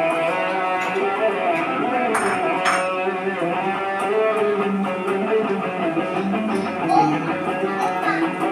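Electric guitar with a distorted rock tone playing a lead line of sustained notes with string bends.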